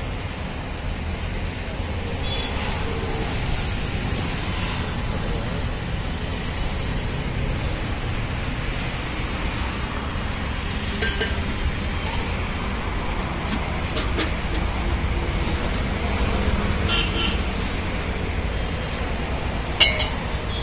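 Busy street ambience with a steady low traffic rumble. A few sharp clinks of a steel ladle against steel serving pots break through it, the loudest near the end.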